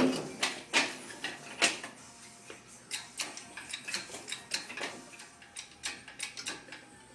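Irregular metallic clicks and clinks of hand tools working on metal, a ratchet-like clatter of sharp taps coming two to four a second.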